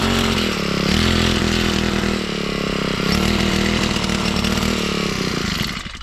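Small engine of a motorized crop sprayer running at high speed, its note dipping briefly a few times, then cutting off near the end.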